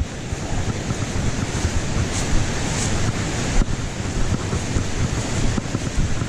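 Steady rushing of flowing creek water, heavy in the low end, with a few small knocks.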